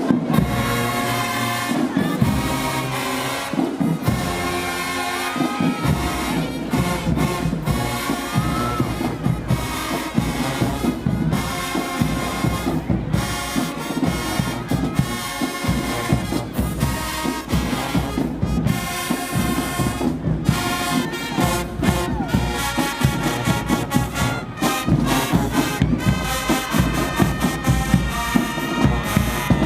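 Marching band playing loud brass music, trombones and trumpets carrying the tune, with the low end filling in about six seconds in as the drums and low brass join.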